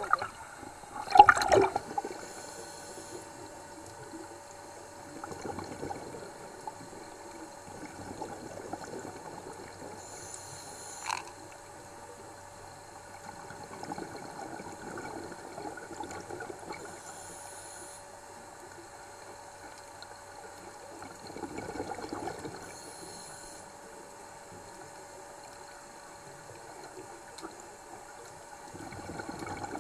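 Underwater sound of scuba diving: a regulator hissing on each breath and exhaled bubbles gurgling, about every seven seconds, over a steady muffled water wash. A louder rush of bubbles comes about a second in.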